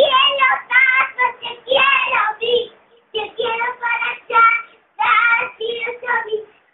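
A young girl singing on her own, in phrases with short breaks about three and five seconds in.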